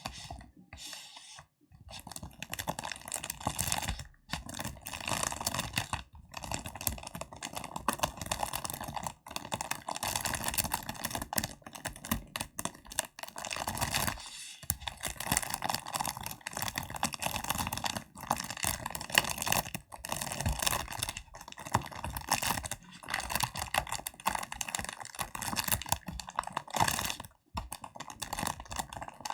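Hands tapping quickly and making sticky crackling sounds: a dense, fast run of small clicks and crackles, broken by a few short pauses.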